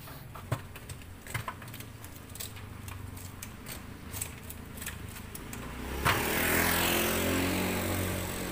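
Light clicks and knocks of metal tongs on trays and plates. About six seconds in, a motor vehicle passes close by: its engine comes in suddenly and is the loudest sound, then slowly fades.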